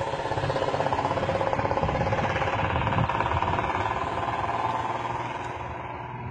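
Pickup trucks in a convoy driving past close by, one after another, their engines and tyres loud as they pass, fading away near the end.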